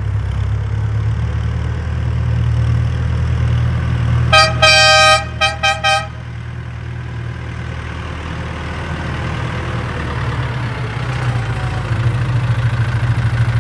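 Massey Ferguson 5455 tractor's diesel engine running steadily as the tractor is driven, growing louder near the end. About four seconds in, its horn sounds one long toot followed by three short ones.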